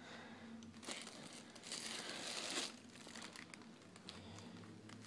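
White tissue paper in a shoebox rustling and crinkling as the shoes are handled. There is a short burst about a second in and a longer one around the middle.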